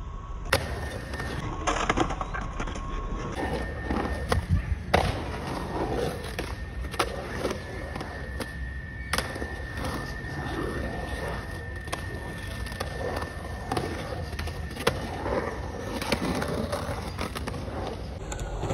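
Skateboard wheels rolling and carving on a concrete bowl, with sharp clacks of the board and trucks striking the concrete and coping every second or so.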